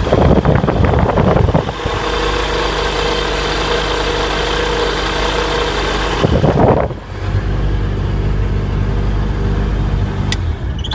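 Rotax 912 ULS four-cylinder boxer engine, fitted with EDGE Performance fuel injection and a 1484cc big-bore kit, running steadily on a ground run. Two loud rushes of propeller wash hit the microphone, near the start and about six seconds in. The engine winds down near the end as it is shut off.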